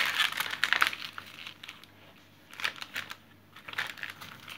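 Paper and foil crinkling as hands handle and press flat a glossy booklet lying on foil packets: a dense burst of rustling in the first second, then a few shorter, quieter rustles.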